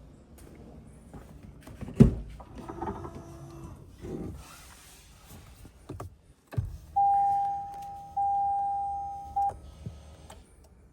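Handling clatter with one sharp knock about two seconds in. Then two long electronic tones of the same pitch, back to back, each fading slowly.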